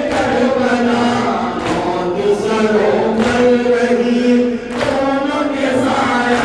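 A noha chanted by a group of men over microphones, with long held lines, and a sharp slap about every second and a half, typical of the mourners beating their chests (matam) in time.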